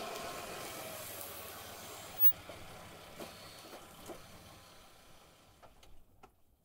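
Hyundai sedan rolling slowly over sand and dirt and coming to a stop, its engine and tyre noise fading away. A few light clicks near the end.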